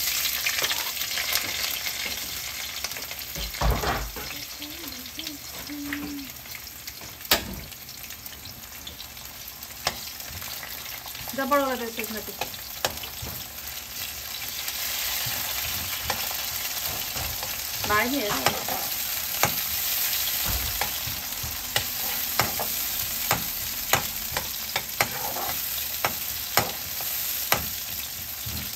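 Vegetables sizzling as they fry in hot oil in a pan, stirred now and then, with the utensil clicking and knocking against the pan. The sizzle starts suddenly at the beginning and then carries on steadily.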